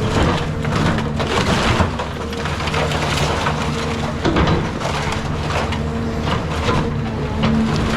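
Caterpillar 323 hydraulic excavator's diesel engine running steadily while wood is crushed and splintered during a house demolition, with constant crackling and snapping.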